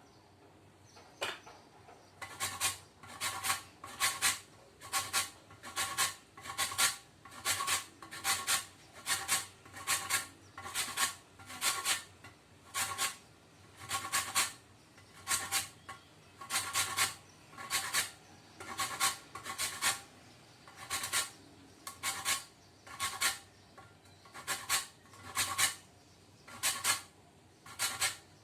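Fine kitchen grater rasping the green peel of a lemon, in short repeated scraping strokes about one or two a second.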